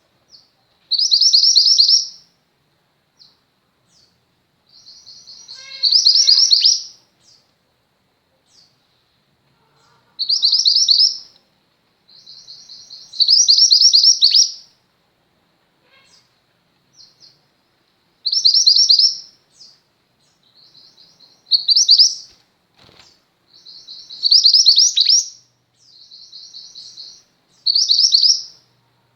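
Female mantenan gunung (a white-eye) singing: high, rapid trilled phrases about a second long, repeated every few seconds, with softer twittering in between.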